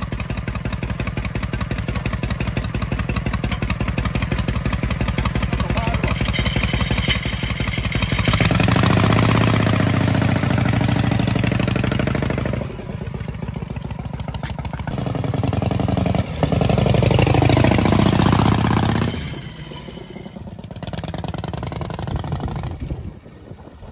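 1950 Harley-Davidson FL Panhead's 1200 cc V-twin idling with an even, pulsing beat. About eight seconds in it revs up as the motorcycle pulls away, rising in pitch twice as it accelerates, then fades as it rides off near the end.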